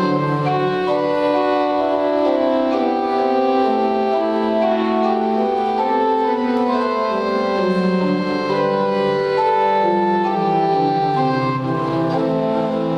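Pipe organ playing several voices at once in overlapping, steadily held notes that change step by step, with a slow-moving bass line underneath.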